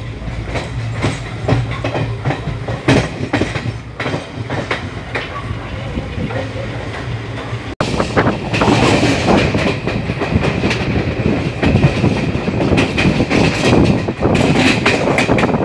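Passenger coaches running at speed, wheels clicking over rail joints and points, heard from an open coach door. After a cut about eight seconds in, the wind and rattle grow louder, with a thin steady high whine.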